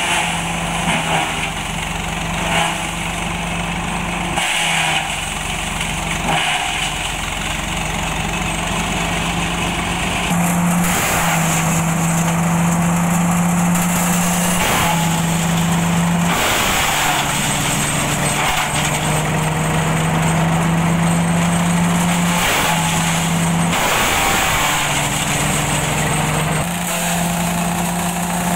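Swaraj 855 tractor's diesel engine running under load, driving a PTO-powered shredder-pulverizer, with a steady hum and repeated rough bursts of shredding as coconut fronds are fed in. The hum steps in pitch and breaks off several times.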